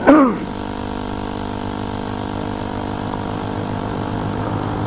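A steady hum with many even overtones under a faint hiss, unchanging through a pause in a talk over a public-address microphone. At the very start, the amplified tail of a man's spoken word dies away.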